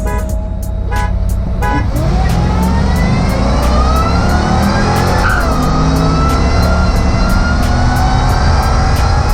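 V8 engines of a 2001 Ford SVT Lightning pickup and a 2006 Corvette accelerating hard in a drag race. The engine pitch climbs steadily, drops briefly at a gear change about five seconds in, then climbs again.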